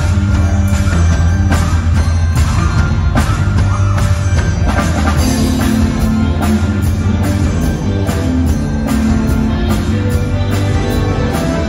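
Live rock band playing loudly through a PA system: a steady drum-kit beat, a heavy bass line and electric guitar.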